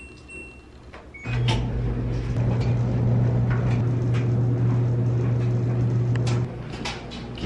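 LG front-load washer and dryer running: a short control-panel beep as the dial is set, then from about a second in a loud steady low hum with laundry tumbling and knocking in the drums. The hum drops near the end.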